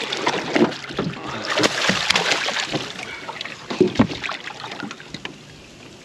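A hooked turtle splashing hard at the surface beside the boat, churning the water with its flippers. The splashing is loudest for the first three seconds or so, then eases to lighter splashes and a few clicks.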